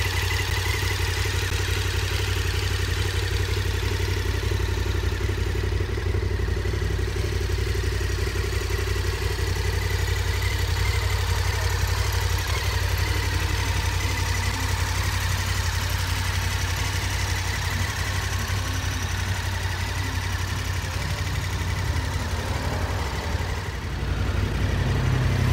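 KTM 1290 Super Adventure S's 1301 cc V-twin engine idling steadily, with a deep low hum. Near the end it dips briefly, then runs a little louder.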